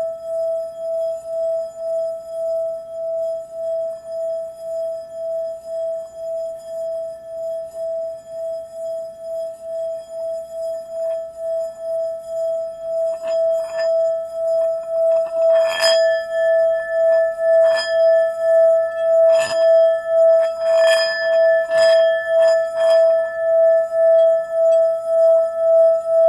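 Singing bowl giving a sustained ringing tone that swells and fades in a steady pulse. From about halfway, several sharp strikes ring out and the tone grows louder and brighter.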